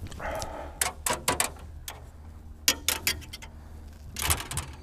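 Irregular sharp clicks and taps with a short rustle, close to the microphone: fishing tackle and a soft-plastic bait being handled while rigging. The loudest clicks come in a quick cluster near the end.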